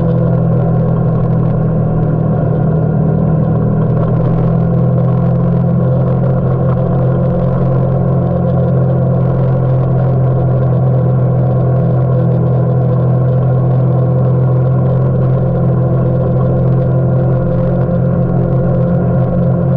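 Kawasaki Teryx4 side-by-side's V-twin engine running steadily, its note holding nearly constant with no revving.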